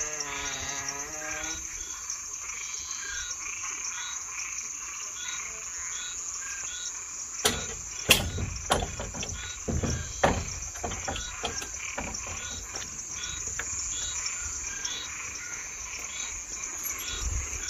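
Night insects, crickets among them, trilling steadily high up, with a short chirp repeating about twice a second. A wavering creak fades out in the first second and a half. Between about 7 and 12 seconds in comes a run of sharp clacks and knocks, the loudest about 8 seconds in: the farm gate's latch being worked.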